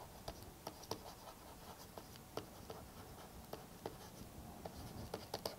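Faint, irregular light taps and scratches of a stylus on a writing tablet as words are handwritten.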